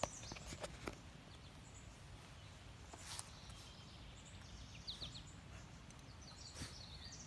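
Quiet outdoor ambience with a few faint bird chirps and several soft clicks.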